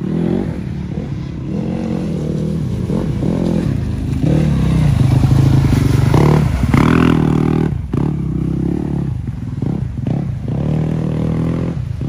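Off-road motorcycle engine revving hard and unevenly, rising and falling in pitch as the rider works the throttle through deep mud. It is loudest as the bike passes close about halfway through.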